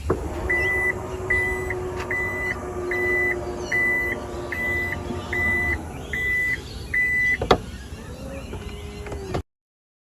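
2021 Toyota Kluger (Highlander) power tailgate running on its electric motor with a steady hum, while its warning buzzer sounds a high single-tone beep about every 0.8 seconds, nine beeps in all. The motor winds down a little before the beeps stop, and a sharp clunk follows near the end.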